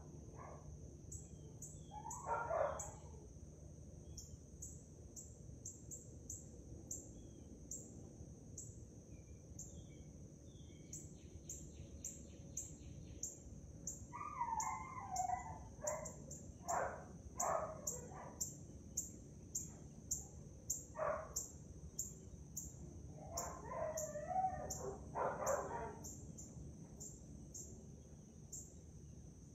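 Birds calling outdoors: a high chirp repeated over and over, about once or twice a second, with louder, lower calls a few seconds in and again in a run past the middle.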